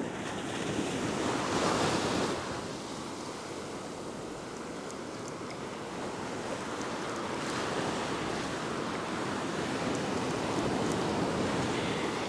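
Small surf waves washing up the shore, the wash swelling twice, about two seconds in and again over the second half.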